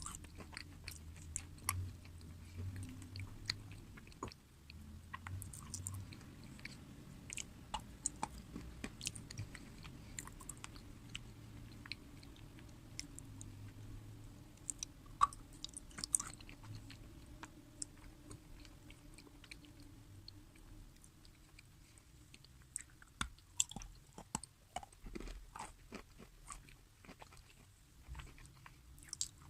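Close-miked chewing and crunching of crisp food, with many sharp irregular crackles and bites.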